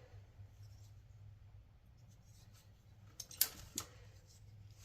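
Quiet room with a faint steady hum, broken about three and a half seconds in by a few light sharp clicks of a small folding knife being handled.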